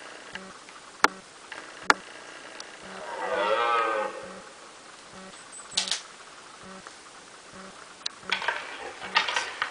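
Red deer stag roaring once in the rut, a drawn-out bellow of about a second a few seconds in. A few sharp clicks come before it, and a cluster of crackling noises near the end.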